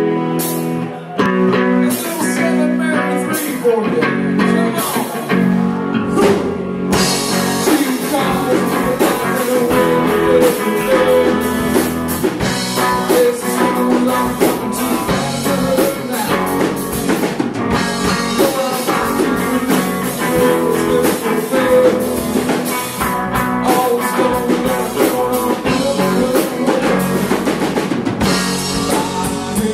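Live rock band playing electric lead guitar, bass guitar and drum kit. It opens with guitar and a few accented hits, and the full band comes in with cymbals about seven seconds in.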